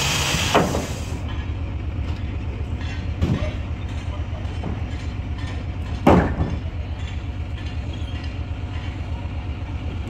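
An engine running steadily with a fast, even throb, under knocks of timber being handled, the loudest about six seconds in. A hissing noise cuts off about a second in.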